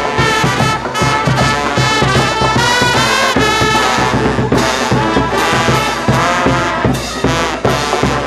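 Street brass band playing live: trumpets and trombones sounding melody and riffs over steady percussion.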